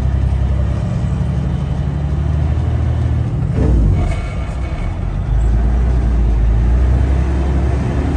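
Semi truck's diesel engine and road noise heard from inside the cab, a steady low drone. It dips for about a second near the middle, then comes back stronger.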